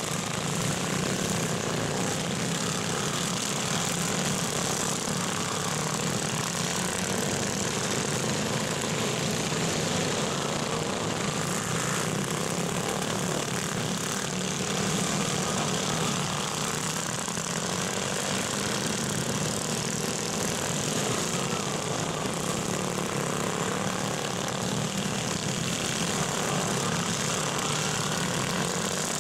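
Several racing garden tractors' small engines running together as they lap a dirt track, a steady overlapping engine drone.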